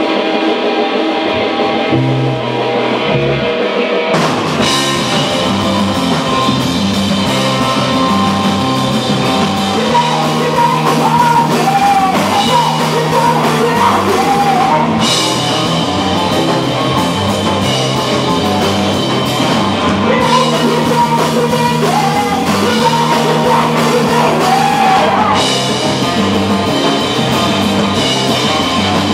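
Rock band playing live: bass and guitar alone at first, drums and cymbals coming in about four seconds in, and a voice singing over the band from about ten seconds in.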